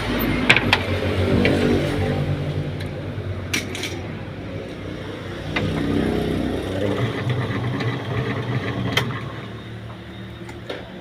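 Washing machine motor running on test, a steady hum that swells and eases a couple of times, with a few sharp clicks.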